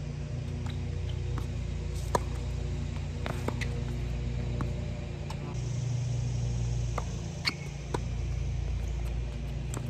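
Tennis balls struck by rackets during a rally: several sharp pops a few seconds apart, the loudest about two seconds in, over a steady low hum.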